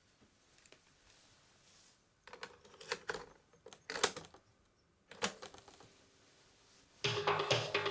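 Mechanical clicks and clunks from handling a Sharp radio-cassette recorder, a few in quick succession and then one more, followed about seven seconds in by music starting to play through its speaker.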